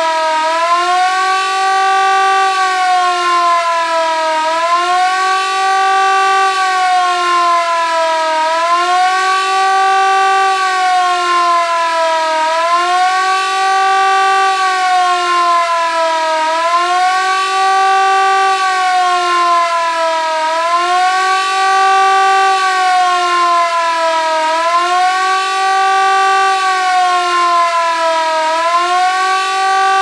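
Siemens FmSi 61 electric motor siren sounding the 'Warnung' alert signal. It is a wailing tone that rises over about a second, holds, then sags, and the cycle repeats about every four seconds.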